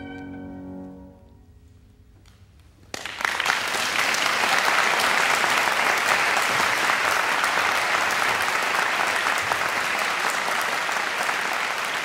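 A cello's final held note, with vibrato, fades out about a second in. After a short hush, a concert audience breaks into applause about three seconds in and keeps clapping steadily.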